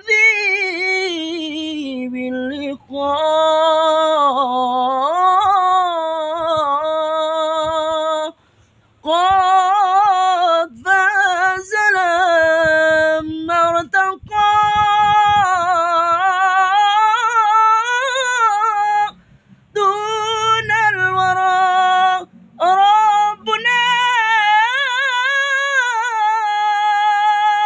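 A high voice singing a sholawat, an Islamic devotional song in Arabic, in long held phrases with wavering, melismatic ornaments. The singing breaks off for short breaths about a third of the way in and again around two-thirds of the way in.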